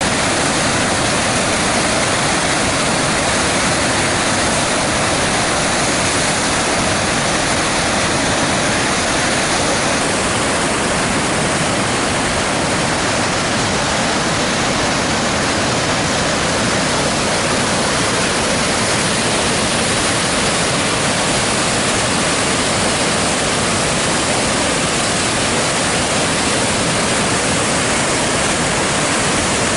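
Kettle River in high flood pouring over the Cascades falls and through a rocky gorge: a loud, steady rushing of whitewater.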